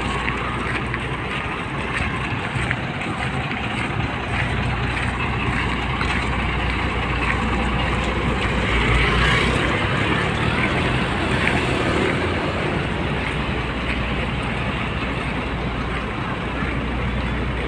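Street traffic noise: a steady rumble of passing cars and motorbikes, swelling a little as a motor scooter goes by about eight to nine seconds in.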